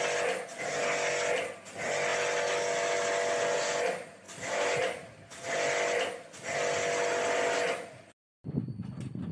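Portable electric pressure-washer pump running in stretches of one to two seconds with short breaks, its water jet hissing against the coil of a split AC indoor unit during a wet service clean. It cuts off abruptly near the end.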